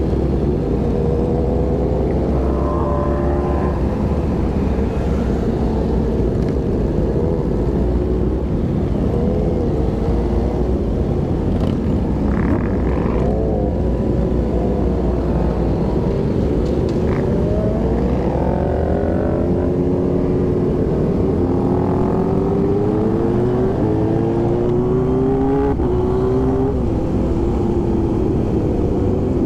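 Motorcycle engines running in a riding group, their pitch wavering up and down with several rising revs in the second half, over a steady low rumble.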